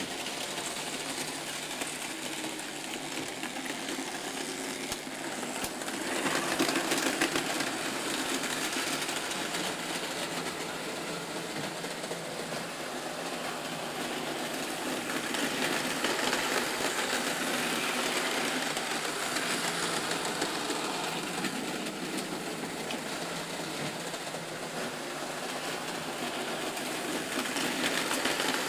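Märklin model trains running: small electric motors whirring and wheels rattling over the track, swelling louder about six seconds in, again midway, and near the end.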